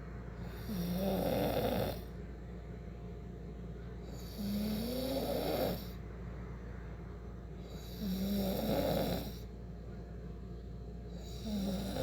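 A sleeping person snoring in a regular rhythm: four snores, about one every three and a half seconds, each lasting about a second and a half.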